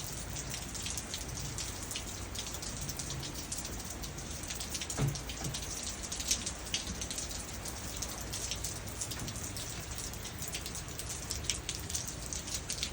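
Steady rain from a hurricane rainstorm, with many sharp drop hits landing on nearby surfaces. A single louder low thud comes about five seconds in.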